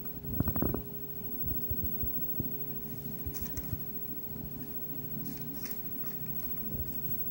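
A wet coconut-jelly gel sheet mask being handled over its plastic pouch: small sticky squelches and crinkly clicks, with a brief squeak about half a second in. A steady low hum runs underneath.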